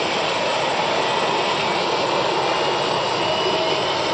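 Twin rear-mounted jet engines of a T-tailed airliner running up for takeoff, their exhaust aimed straight at the listener: a steady, loud roar of jet blast.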